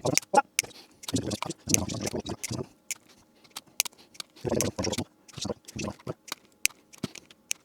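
Irregular sharp clicks and snips with handling noise, typical of side cutters trimming the ends of cables at a workbench.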